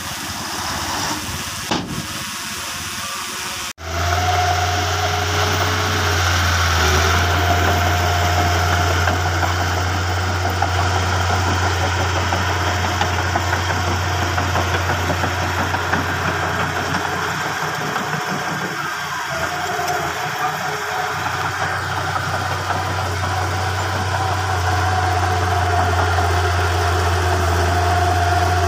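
A hiss for the first few seconds cuts off abruptly. A Komatsu bulldozer's engine then runs steadily with a low, even hum.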